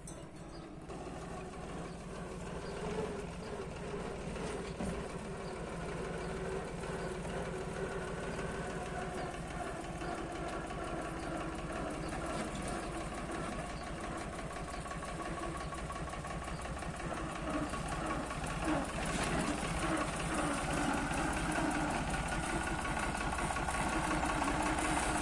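Old farm tractor's engine running as the tractor drives closer, growing steadily louder throughout.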